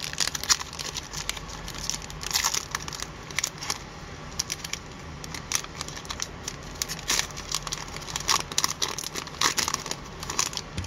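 Foil wrapper of an Upper Deck hockey card pack being torn open and crinkled by hand: irregular crackling and crinkling throughout.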